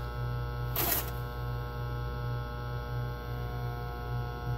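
Microwave oven running on a 1500 W ProWatt inverter, giving off a loud, steady electrical buzz with a slightly pulsing hum beneath it, the noise this inverter's power makes the oven produce while it still cooks. There is a short hiss about a second in, and the buzz cuts off right at the end.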